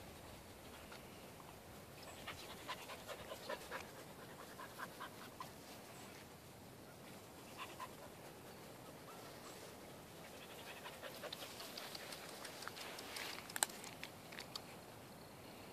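Border collie puppies panting quietly in short bursts, mixed with faint rustling and a sharp click near the end.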